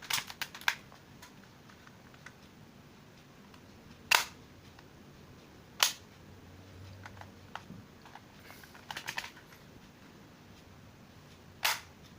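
Sharp plastic clicks and snaps from working a spring-powered plastic airsoft Glock 42 pistol: a quick run of small clicks at the start, single loud snaps about four and six seconds in, another run of clicks around nine seconds, and a last loud snap near the end.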